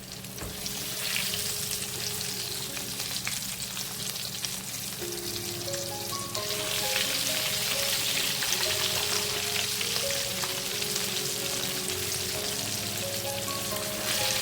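Floured, cornmeal-coated chicken pieces deep-frying in hot oil, a steady sizzle that grows louder about six seconds in.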